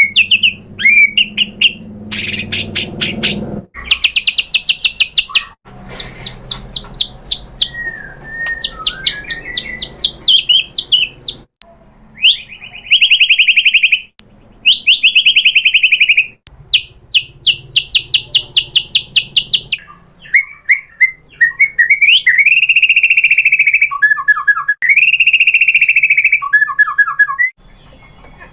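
White-rumped shama (murai batu) singing a loud, varied song. It is made of long runs of fast repeated notes and trills, with a few slurred whistles between them.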